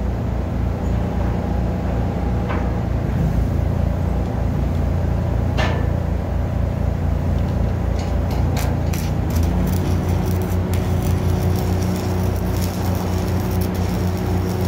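Arc welding crackle, starting about eight seconds in, as bridging is welded to a steel bar joist, over the steady drone of an engine running. The engine note changes about halfway through.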